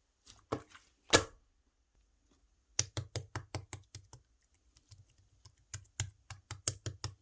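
Clear slime being pressed and poked by fingers, giving crisp clicks and pops. A few single pops come first, then two quick runs of about four clicks a second.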